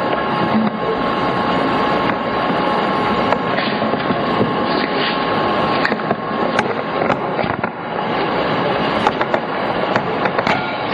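Steady rushing noise, like wind or distant traffic on a camcorder soundtrack. A faint steady tone stops about halfway through, and a few sharp clicks come near the end.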